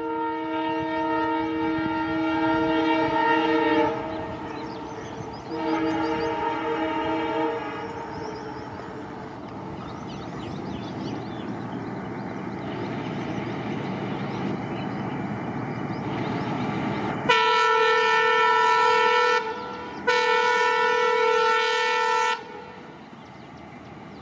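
Indian Railways diesel locomotive horn sounding a long blast, then a shorter one a couple of seconds later, followed by about ten seconds of the train's running rumble. Near the end come two more loud blasts in a slightly higher chord.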